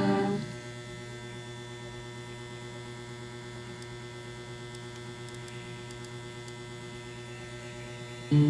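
Steady mains hum from an electric guitar rig between played passages. An electric guitar through a harmonizer pedal fades out about half a second in and comes back in loudly just before the end.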